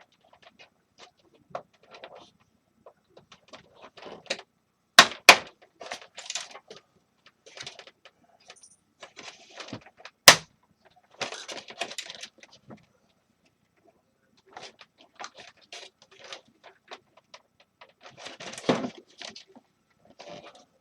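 Scattered clicks, taps and light clatter of an electric space heater's parts and a screwdriver being handled during disassembly, with two sharp knocks about five seconds in and another about ten seconds in.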